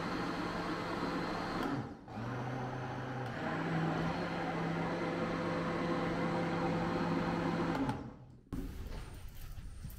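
An electric kitchen appliance's motor running steadily. It cuts out briefly about two seconds in, returns and shifts to a slightly higher pitch about a second later, then stops near the end, leaving a quieter background.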